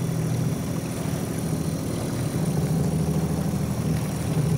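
Motorboat engine running steadily at low speed: a low, even hum.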